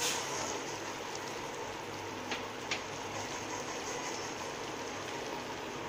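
Vermicelli upma simmering in water in a kadai, a steady bubbling hiss, with two short clicks from the metal ladle against the pan a little past two seconds in.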